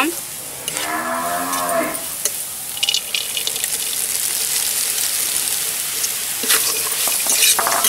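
Hot oil sizzling in an iron wok of frying green chickpeas as raw peanuts are poured in, landing with clicks and rattles in two spells. About a second in, a cow moos once.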